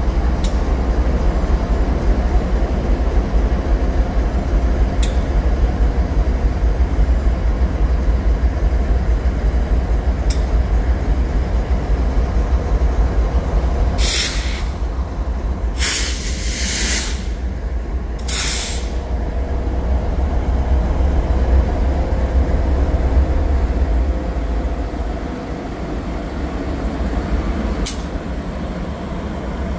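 BNSF diesel freight locomotives running with a deep, steady rumble that eases off near the end. Three short bursts of air-brake hissing come a little before halfway.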